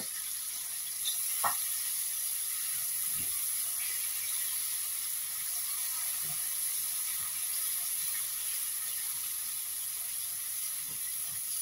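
Onion-and-spice masala with freshly added chopped tomato sizzling steadily in a stainless steel karahi as it is fried down and stirred, with a few light knocks from the silicone spatula.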